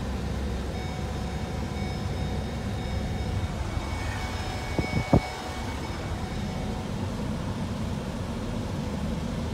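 Vehicle moving slowly along a dirt road, heard from inside the cab as a steady low rumble. A faint steady whine runs through the middle. Two sharp knocks come close together about five seconds in.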